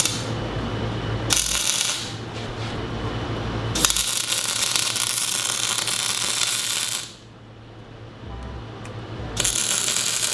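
Arc welding crackling in three bursts, the longest about three seconds, over a steady electrical hum.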